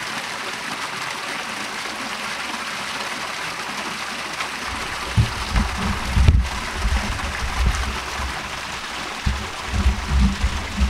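Shallow rocky creek running steadily. From about five seconds in, low irregular rumbles come and go on the microphone.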